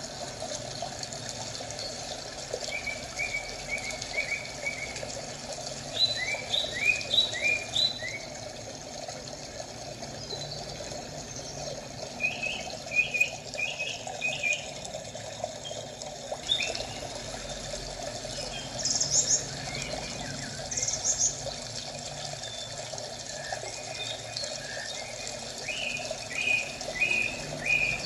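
Birds chirping over steadily running water: short runs of quick, repeated chirps come every few seconds over a constant trickle.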